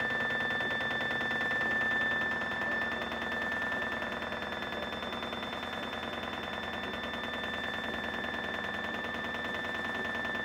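Screw-driven organ console lift running as it lowers the console: a steady high whine over a fast, even rattle.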